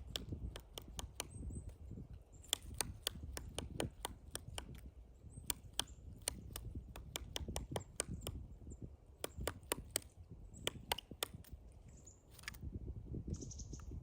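Pileated woodpecker chiselling into a pine trunk: irregular sharp knocks of its bill on the wood, at times several a second in quick runs. A brief scratchy rustle comes near the end.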